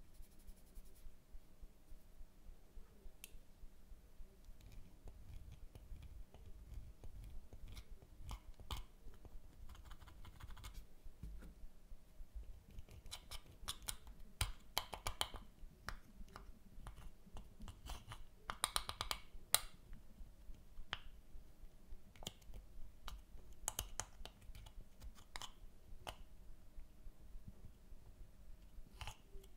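A metal spatula tool scraping and crushing a pressed powder blush in its plastic compact: faint crackling scratches and small clicks, busier about halfway through.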